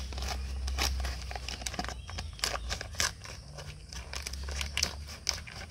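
Scissors snipping through a plastic cement sack: a string of irregular sharp cuts, about two a second, with the crinkle of the sack's plastic.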